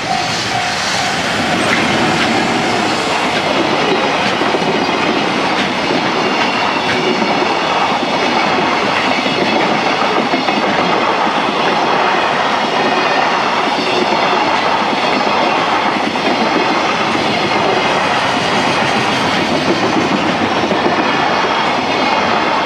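Container freight train hauled by an EF210 electric locomotive rolling past over a level crossing: a loud, steady rumble with wheels clattering over rail joints, and a faint high squeal from the wheels.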